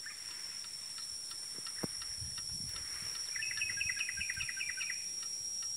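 Steady high-pitched insect drone in roadside vegetation, with a quick run of chirps, about seven a second, a little over three seconds in.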